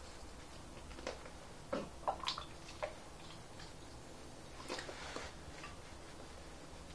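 Light clicks and taps of hand work with small tools and parts: a handful in the first three seconds, then another brief cluster about five seconds in.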